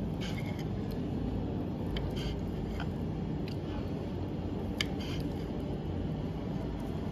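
A knife cutting through cooked leftover liver on a plate: scattered soft clicks as the blade meets the plate, the sharpest about five seconds in, over a steady low hum.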